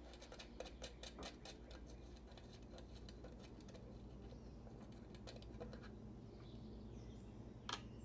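Faint clicks and light taps of hands handling a plastic motor-control enclosure and its wiring, with one sharper click near the end.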